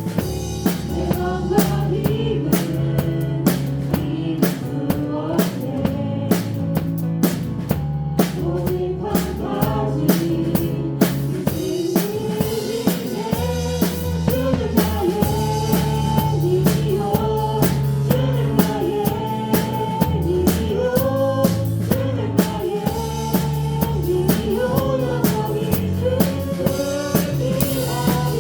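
A live church praise band playing a worship song: a drum kit keeps a steady beat of kick, snare and cymbals over bass and keyboard, with voices singing the melody.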